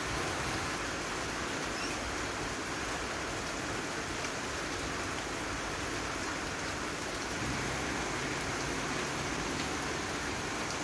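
Steady rain falling, an even hiss with faint drop ticks through it.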